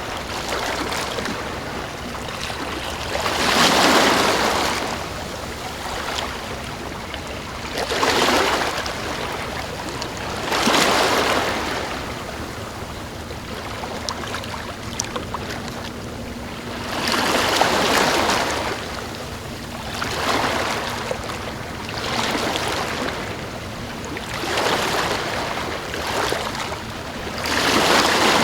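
Calm waves breaking and washing up on a sandy beach, a soft swell of surf every three or four seconds.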